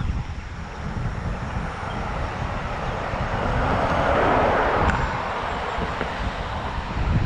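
Wind buffeting the microphone while cycling, with a motor vehicle passing close by: its road noise swells, is loudest about four seconds in, then fades.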